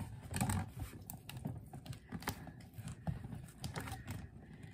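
Fingernails picking and scratching at the packing tape on a cardboard shipping box, a run of small irregular scratches and taps.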